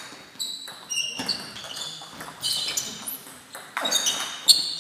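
Table tennis rally: the ball clicking sharply off the rubbers and the table in quick succession, each hit with a short high ping, echoing in a large hall.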